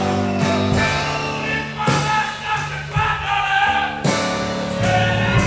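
Live blues band playing: guitar, saxophone and keyboard holding sustained chords, with a few sharp drum or cymbal hits.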